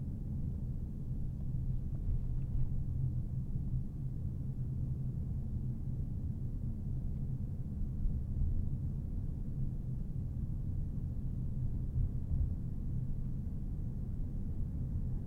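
A car driving along a road: a steady low rumble of tyre and engine noise.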